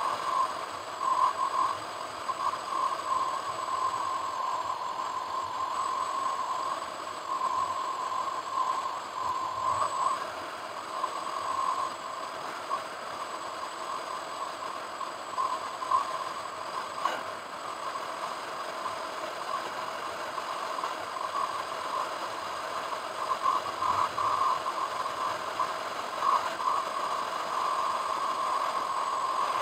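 Steady road and running noise of a car being driven, heard from inside through a windscreen-mounted camera, with light irregular rattling and a faint steady high whine.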